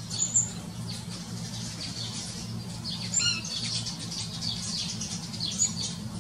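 House sparrows chirping, many short, high chirps overlapping, with a steady low hum underneath.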